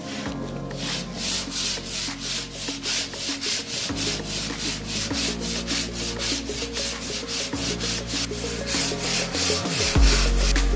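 Wooden desk being sanded by hand with rapid back-and-forth strokes, about four a second, under background music.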